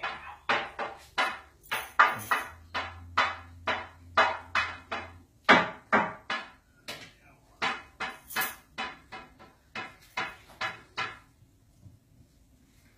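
A quick, irregular run of sharp knocks and clatters, two or three a second, that stops about eleven seconds in.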